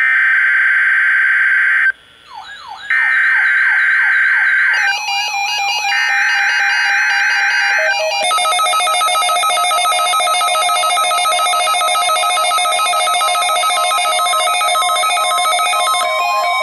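Weather radio's EAS/SAME digital header: three harsh two-second data bursts with short gaps between them, marking the start of the Required Weekly Test. From about two seconds in, other electronic alert tones layer over the bursts: repeating swooping chirps, then a dense steady chord of beeping tones through the second half.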